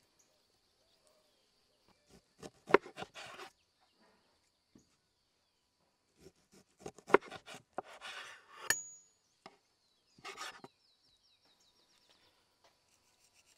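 Chef's knife slicing through a slab of pork fat and knocking on a wooden cutting board: three bursts of cutting strokes and taps, over a faint steady high tone.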